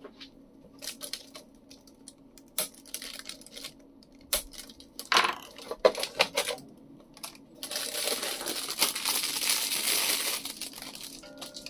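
Hand-handling sounds: a string of sharp clicks and snaps as flush cutters cut a zip tie and the power supply is pulled free of its box, then plastic wrapping crinkling loudly for about three seconds as the power brick is unwrapped.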